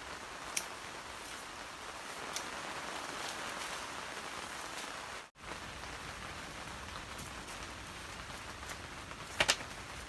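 Steady rain pattering on the plastic film of a greenhouse, an even hiss with a few light clicks. The sound cuts out for an instant about five seconds in, and near the end two sharp knocks come as cucumbers are laid into a plastic crate.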